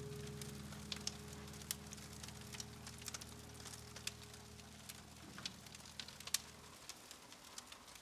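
Crackling fire: a faint hiss with scattered small pops and snaps, under a low held music note that fades away about seven seconds in.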